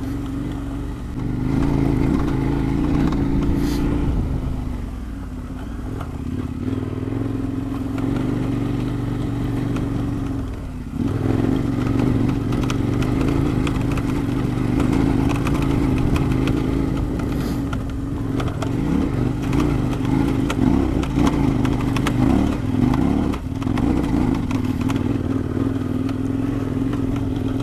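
KTM 1090 Adventure R's V-twin engine running under load as the motorcycle climbs a loose, rocky dirt track, the revs rising and falling. The engine note drops away briefly about eleven seconds in, then picks up again.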